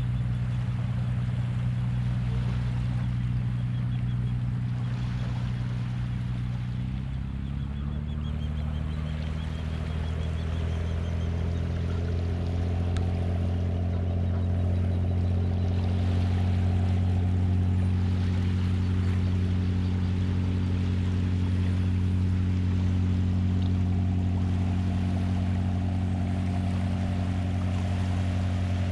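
A motor's steady low hum, its pitch shifting to a new level about seven seconds in and holding there.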